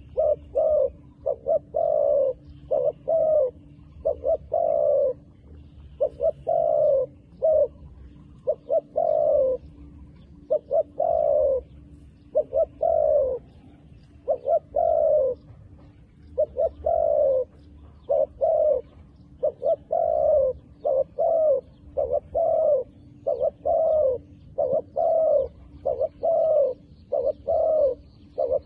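Doves cooing continuously, a steady series of short, falling coo notes in quick groups.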